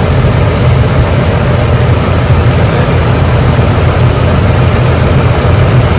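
Jeep Liberty's V6 engine idling steadily with a misfire on cylinder 4, traced to a bad ignition coil.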